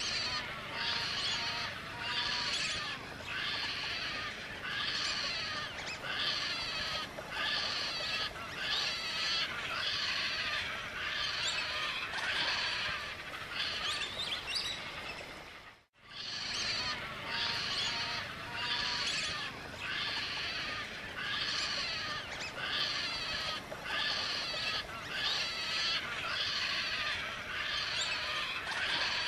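A dense chorus of birds chirping, pulsing in an even rhythm a little more than once a second. About halfway through it cuts out for a moment and the same stretch of sound starts over.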